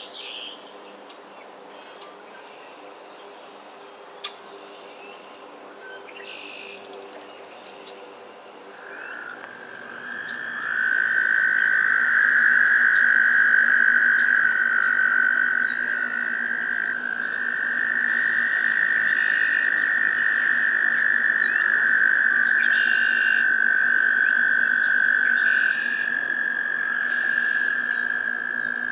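Male American toads trilling, their breeding call to attract females: long, steady, high trills that begin about a third of the way in, with two or more toads overlapping at slightly different pitches. Short bird calls sound over and before the trills.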